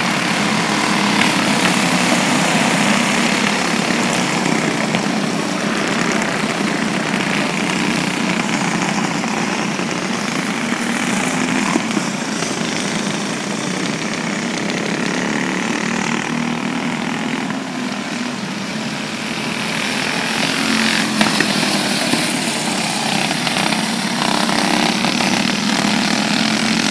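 Racing kart engines running steadily on the track, a dense mechanical drone.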